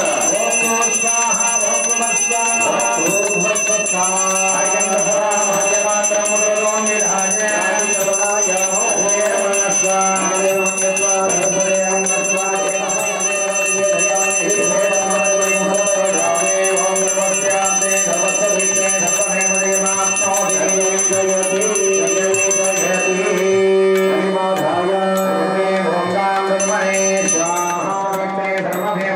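Devotional music over a steady drone, with pitched melodic lines that bend and slide, and a bell ringing on and on throughout.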